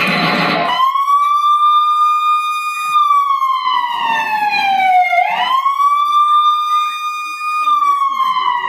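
Recorded siren sound effect in a backing track: one slow wail that holds, falls in pitch to about 5 seconds in, sweeps quickly back up, and starts falling again near the end. It cuts in abruptly over music about a second in.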